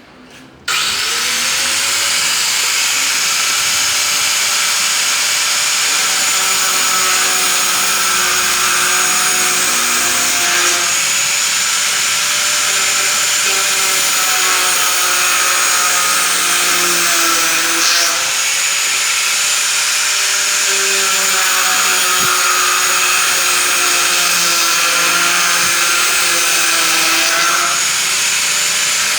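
A motor-driven machine or power tool starts abruptly and runs continuously, a loud steady hiss with a hum whose pitch drifts slightly up and down.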